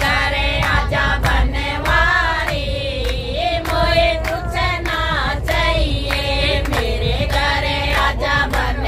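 Several voices singing a devotional bhajan together, with hand claps keeping time, over the low rumble of a moving train.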